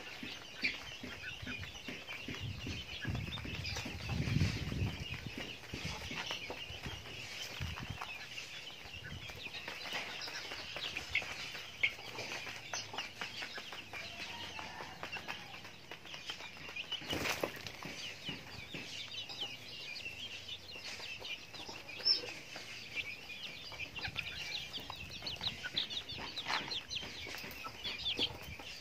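Chickens clucking and chicks peeping while they peck at feed, with a few sharp clicks among the calls.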